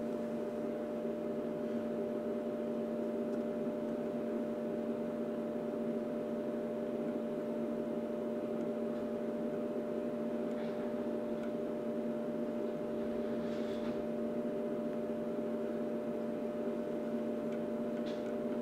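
Steady electrical mains hum and buzz made of several steady tones over a light hiss, from bench electronics powering an amplifier board under test. A couple of faint ticks come about two-thirds of the way through.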